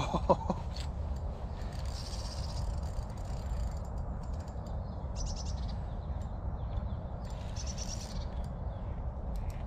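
Fixed-spool fishing reel's drag ticking in two short fast runs, about five and eight seconds in, as a hooked carp pulls line off, over a steady low rumble of wind on the microphone. A brief loud pitched sound comes right at the start.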